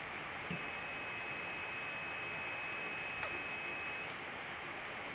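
Buzzer on a breadboard logic-gate fire-alarm circuit sounding one steady high-pitched tone for about three and a half seconds, then cutting off suddenly: the alarm going off when triggered by its switch alone.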